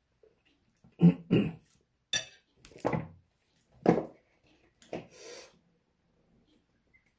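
Close-miked eating noises from a man eating a bowl of ramyeon noodles: about six short, loud mouth noises, slurps and smacks, over the first five seconds, then quiet.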